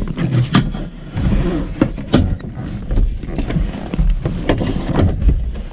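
Irregular knocks, clicks and rubbing of someone moving about inside a car cabin and handling the camera, over a low rumble.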